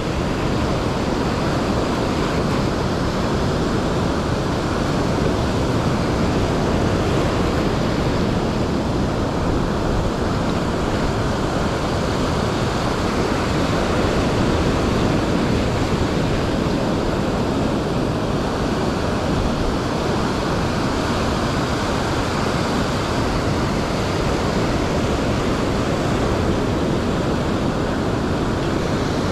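Ocean surf breaking and foam washing up a sandy beach: a steady, unbroken rush of waves.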